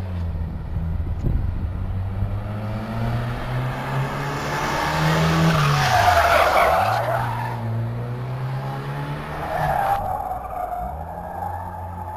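VW Golf Mk2 with a 110 PS engine doing donuts: the engine is held at high revs that rise and fall as the car slides, with tyres squealing and screeching on the paving, loudest about halfway through and again near the end.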